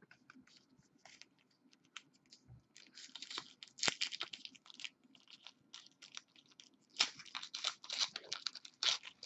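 Trading-card pack wrapper and cards being handled: crinkling and rapid clicking, louder in two spells, about three seconds in and again from about seven seconds in.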